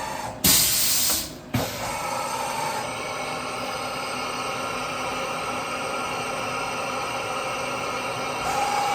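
Milltronics RH20 CNC milling machine running with a steady whine and hum. A loud hiss about half a second in lasts under a second, followed by a sharp click.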